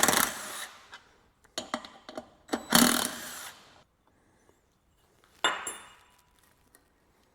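Metal pump parts and tools being handled on a work surface during pump disassembly: clicks and two loud clattering scrapes, one at the start and one about three seconds in, then a single sharp metallic clink with a short ring about five and a half seconds in.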